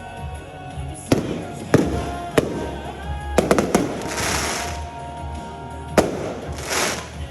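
Fireworks bursting overhead: single bangs about a second in and around two seconds, a quick cluster of reports a little after three seconds, and another bang near six seconds. Crackling, hissing glitter follows the cluster and comes again near the end. Music plays steadily underneath.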